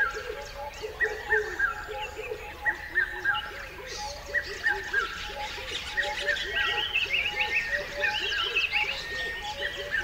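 Birds chirping: many short calls, each dipping in pitch, repeat over and over, and a higher run of chirps joins in about four seconds in.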